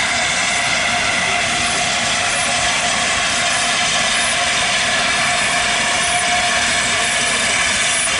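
A train on the move: a steady rolling noise of wheels on rails, with a faint high squeal running through it.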